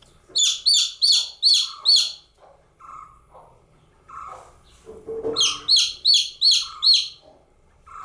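Baby chicken chick peeping loudly: two runs of about five quick, high chirps, each a short falling sweep. The first run comes right at the start and the second about five and a half seconds in, with softer, lower chirps and calls in between.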